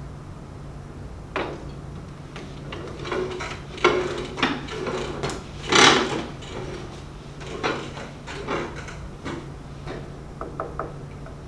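Irregular knocks, scrapes and rustles of a person sitting down at a desk, loudest about four and six seconds in, over a steady low hum.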